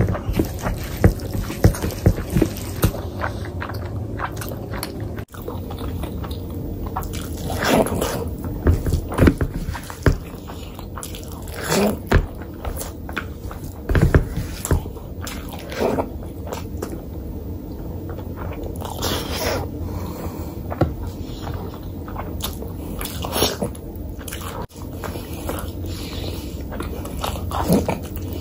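Close-miked eating sounds: fingers squishing and mixing rice into mutton curry, with wet chewing and lip-smacking. A quick run of wet clicks comes in the first few seconds, then scattered smacks follow.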